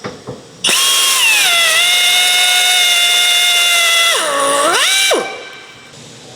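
A hand drill drilling out the remainder of a blind rivet: a steady high-pitched whine that sags sharply under load near the end, picks up again, then stops.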